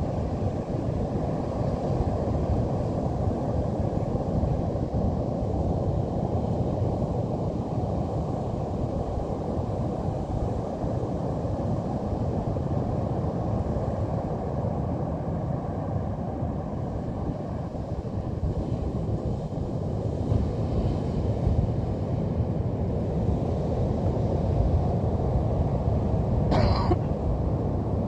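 Steady low rumble of Pacific Ocean surf, mixed with wind buffeting the microphone. One brief sharp sound comes near the end.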